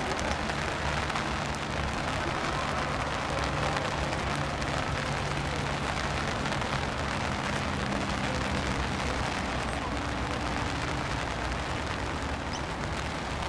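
Heavy rain falling, a steady hiss, with a faint low hum underneath that fades out about two-thirds of the way through.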